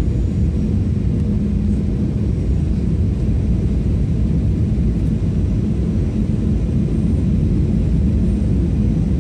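Steady low rumble of an airliner's engines and rushing air, heard from inside the passenger cabin on landing approach, with a faint steady hum underneath.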